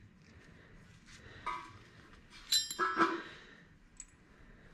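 Small steel brake-booster kit parts (pins, push rods, washers) clinking as they are handled and set down: a few light metallic clinks, with the loudest, ringing one about two and a half seconds in.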